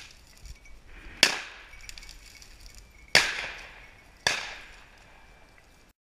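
Three shotgun shots: the second comes about two seconds after the first and the third a second after that, each loud and sudden with a fading echo.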